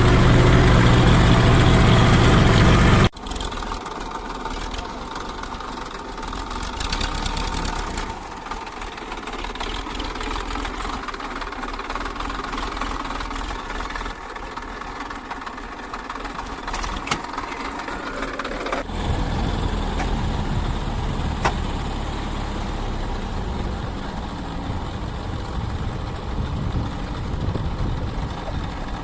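Diesel engine of heavy machinery running steadily. It is loud for the first three seconds, cuts off abruptly to a quieter engine sound, and grows louder again about two-thirds of the way through, with a few sharp clicks.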